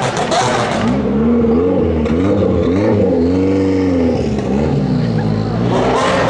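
A supercar's engine revving up and down several times. The pitch climbs and falls over about five seconds, with the longest rise and fall in the middle.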